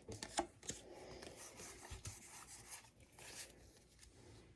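Faint rustling, sliding and light tapping of trading cards and card-pack wrappers being handled, with a few soft clicks.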